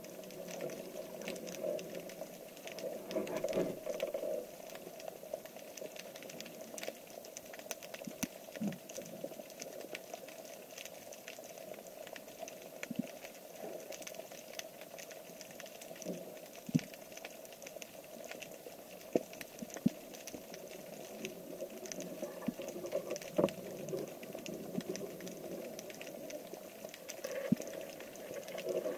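Underwater ambience heard through a camera housing: a steady crackle of small clicks and pops, with louder rushing water noise near the start and again near the end.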